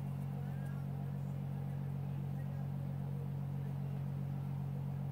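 A steady low hum with a fast, even flutter in it. Any sound of the glitter being shaken out is faint beneath it.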